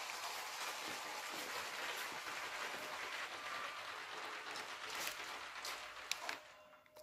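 Motorized brick-built model train, a modified Bluebrixx E320, running on plastic track: a steady noisy whirr and rattle of motor and wheels. There are a few clicks near the end before it falls quiet.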